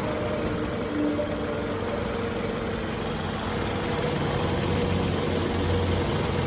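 Car engine idling steadily, running with an exhaust leak. Its low hum grows a little louder about four and a half seconds in.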